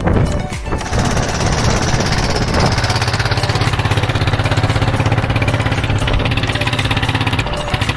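Motorized outrigger boat's (bangka's) engine running under way, a loud, fast, even pulsing that settles in from about a second in.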